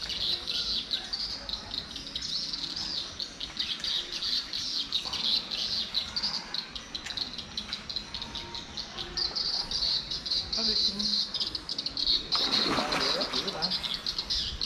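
Insects and birds chirping steadily at a high pitch. Near the end comes a short splash as a hooked fish thrashes at the pond surface.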